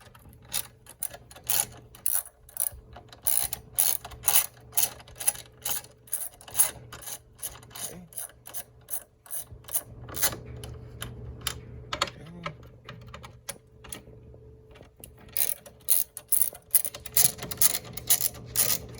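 Hand ratchet with a long T30 Torx bit clicking in quick runs as the headlight's mounting bolts are undone, with a short pause about two-thirds of the way through. A faint steady hum lies underneath.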